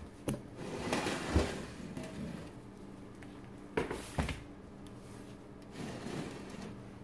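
Handling noises on a kitchen counter: a rustle about a second in and several sharp knocks and clicks as things are picked up, moved and set down, with a faint steady hum underneath.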